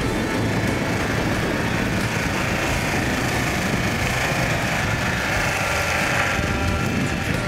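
Isuzu Trooper's engine running steadily as the 4x4 drives through snow on a field.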